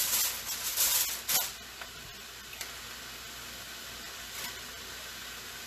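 Aluminium foil crinkling in quick crackly bursts as it is handled and pressed over a large pan, stopping about a second and a half in; after that only a faint steady hiss.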